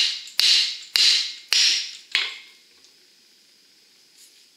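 Hammer striking the steel yoke of a Ford F-350 axle-shaft U-joint held loosely in a bench vise: about five ringing blows, roughly one every half second, stopping a little over two seconds in. The blows drive a rusted U-joint bearing cap out of the yoke.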